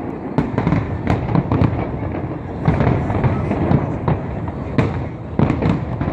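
Fireworks display, many shells bursting in quick succession, several bangs a second over a continuous rumble of explosions.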